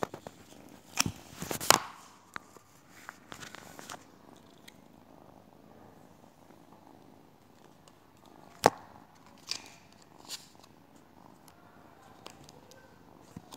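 Tabby cat purring close to the microphone, with loud rubbing and knocks of fur and hand against the phone about a second in and again about two-thirds of the way through.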